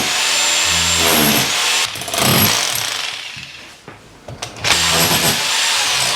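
Handheld power tool cutting into the wall for a socket back box. It runs in three goes, stopping briefly about two seconds in and again for a moment around four seconds in.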